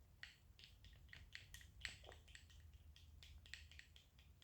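Faint, irregular wet clicks and smacks of a baby eating mashed banana from a spoon, a few each second.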